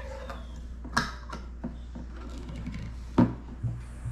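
Glass juice bottle and its metal screw cap being handled on a kitchen countertop: a few sharp clicks and knocks, the loudest about a second in and again about three seconds in, over a steady low hum.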